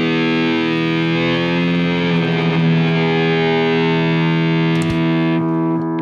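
Distorted electric guitar chord held and ringing out, a steady sustained drone, as the rock song ends. A couple of drum hits land near the end, after which the bright top of the sound cuts away and the ringing begins to fade.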